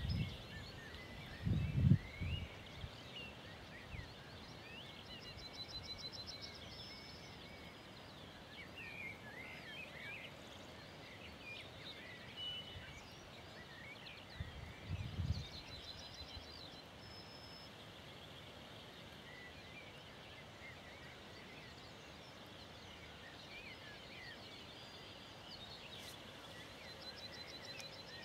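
Faint songbirds chirping and warbling, with a short rattling trill ending in a longer high note heard three times. A brief low rumble comes about two seconds in and again, a little louder, about fifteen seconds in.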